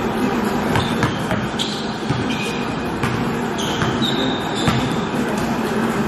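Basketball sneakers squeaking on a gym floor in short, high chirps several times, with a few sharp ball bounces, over a steady low hum.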